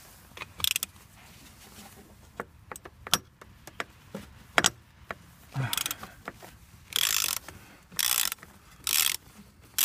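Socket ratchet working loose the centre nut of an engine-mount bracket. A few sharp metal clinks come first, then from about halfway four short bursts of pawl clicking about a second apart as the handle is swung back between turns.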